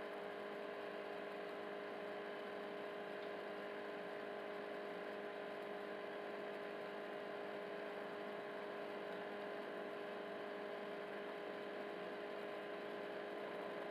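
Steady electrical hum with several constant tones over a faint hiss. No scraping or stirring sounds stand out.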